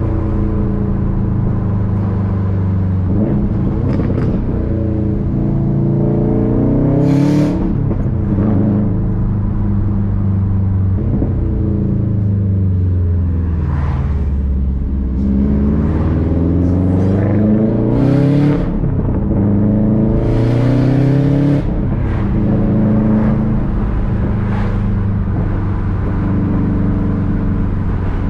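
Subaru WRX STI's turbocharged flat-four engine with its boxer rumble, repeatedly revving up and dropping back through gear changes while driving. Several short hissing bursts fall between the pulls.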